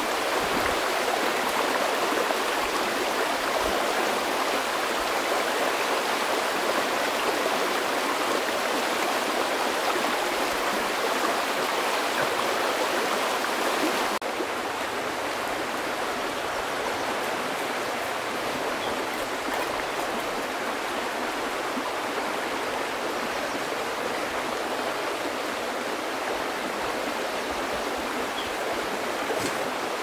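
Shallow river running over stones: a steady rush of water that drops a little in level about halfway through.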